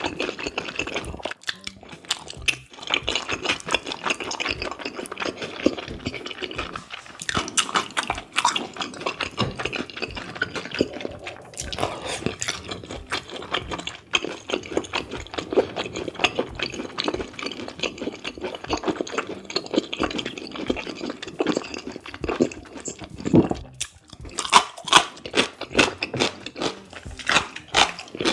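Close-miked chewing of cold spicy bibim noodles and raw beef yukhoe, a steady run of small wet mouth clicks, with sharper, louder clicks near the end.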